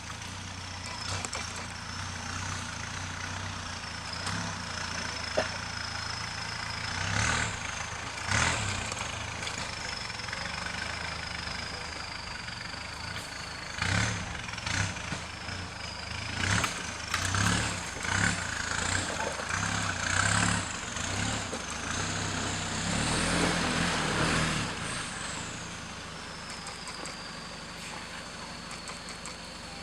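Off-road 4x4 vehicle engine running, with repeated revs that come and go, loudest in the middle of the stretch.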